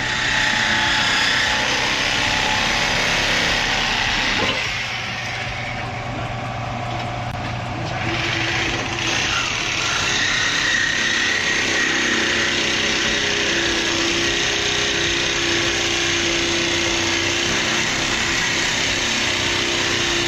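A power tool running steadily and loudly, with its tone shifting about four to eight seconds in, during work on a car's exhaust.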